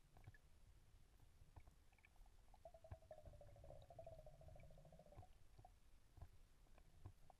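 Faint underwater ambience: a low rumble with scattered soft clicks, and a faint buzzing tone from about two and a half to five seconds in.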